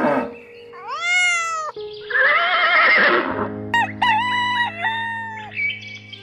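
Background music with animal calls layered over it: a few loud, drawn-out calls that rise and fall in pitch.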